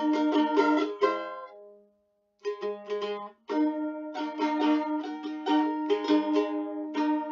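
Background music of quickly plucked string instruments. About a second in it fades to a brief silence, then starts again and fills back out.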